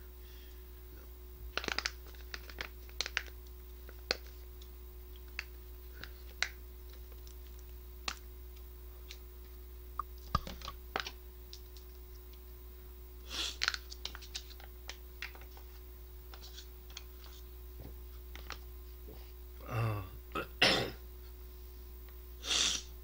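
Scattered light clicks and taps, with a short throaty vocal sound, like a burp or a clearing of the throat, about twenty seconds in.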